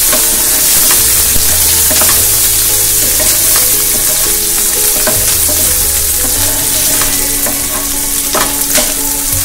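Chopped onion and green chillies sizzling in hot oil in a nonstick frying pan, stirred with a spatula that scrapes through the pan. There are a couple of sharper taps of the spatula on the pan near the end.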